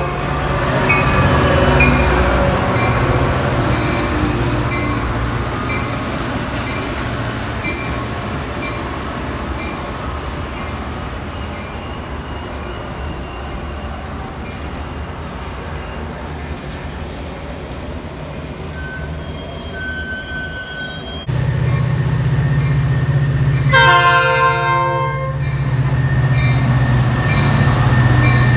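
Metra diesel passenger locomotives passing at a station: a steady low engine drone with the rumble of the passing coaches that fades away, then, after a cut about 21 seconds in, a louder engine drone close by. The locomotive's horn sounds once about 24 seconds in for about a second and a half.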